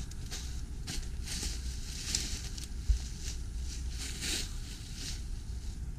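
Footsteps crunching through thin snow and undergrowth, about one to two steps a second, over a steady low rumble on the microphone. One sharper knock comes near the middle.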